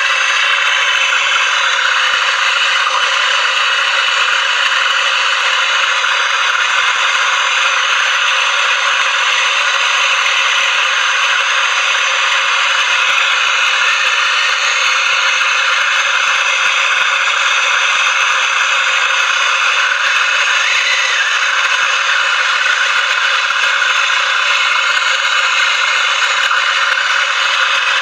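Handheld MAPP gas torch burning with a steady hiss while brazing copper refrigerant pipe onto a fridge compressor's port.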